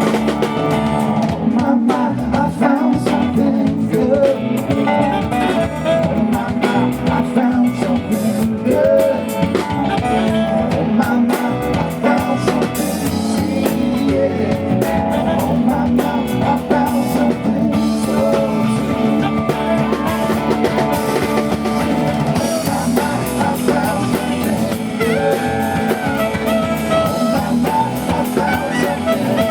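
Live band playing a song at full volume: drum kit, guitar and bass, with a saxophone carrying the lead melody.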